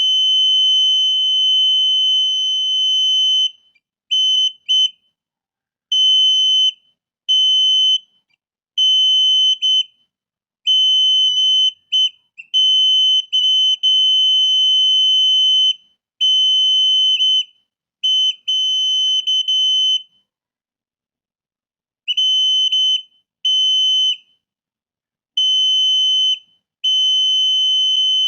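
The buzzer of a laser-beam LDR alarm circuit, switched by a BC547 transistor, sounds a steady, high-pitched electronic tone. It cuts in and out irregularly, in bursts from a fraction of a second to several seconds long. Each burst marks the laser beam being cut, and each break marks the beam reaching the light sensor again.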